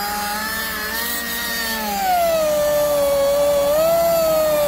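Power drill running with a steady motor whine that drops in pitch about two seconds in as it bears down, drilling into the machine's lock.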